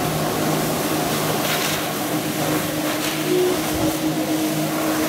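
Jet ski engine running steadily under load as it pumps water up the hose to a flyboard, with the hiss of the water jets and spray over it.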